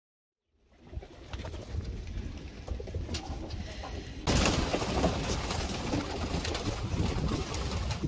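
A flock of domestic pigeons cooing in their loft, with scattered small clicks among the calls. The sound comes in about half a second in and turns louder about four seconds in.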